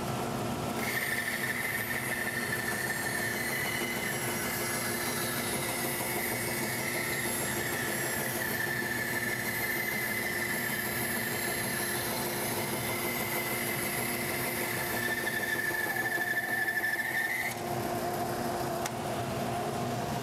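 Laguna 1412 bandsaw cutting through a board: a steady high whine from the blade in the wood starts about a second in and stops suddenly a few seconds before the end as the cut finishes, over the steady running of the saw and the dust collector.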